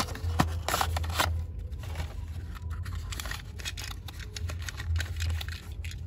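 Cardboard window box of a 1:64 diecast toy being opened by hand and the toy taken out of its clear plastic tray: crinkling, scraping and a quick run of small clicks, over a low steady hum.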